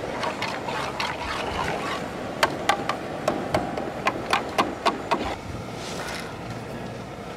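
Hot oil sizzling as besan batter drips through a perforated ladle to fry boondi, with a run of about ten sharp taps, roughly four a second, between about two and five seconds in.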